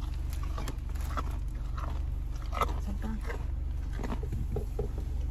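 An elk at an open car window biting and chewing a carrot, with scattered crunches and clicks. The steady low hum of the car's idling engine runs underneath.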